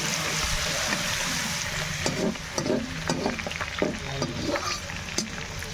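Food sizzling in hot oil in a pan while it is stirred, with clicks and scrapes of the spoon against the pan from about two seconds in.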